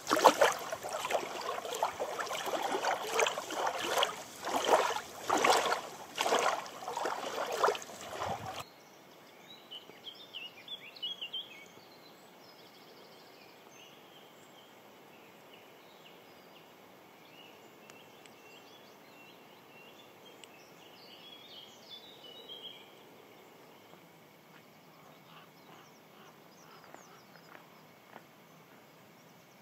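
Small waves lapping and splashing on a sandy lake shore, coming in irregular surges about once a second. About eight seconds in it cuts off abruptly to quiet outdoor background with a few faint bird chirps.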